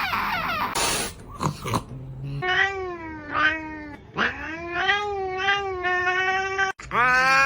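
Domestic cat caterwauling: a noisy, breathy first second, then a string of long, wavering yowls, about five in a row, and after a sudden break a louder held yowl near the end.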